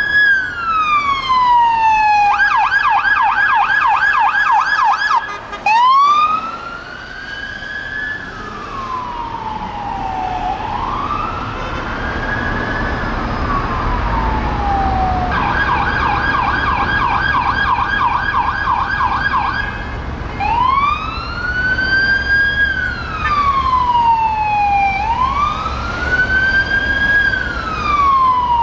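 Police car siren switching between a slow rising-and-falling wail and a fast yelp, twice over, with engine and road noise from the passing Peugeot 308 response cars. There is a short loud knock about six seconds in.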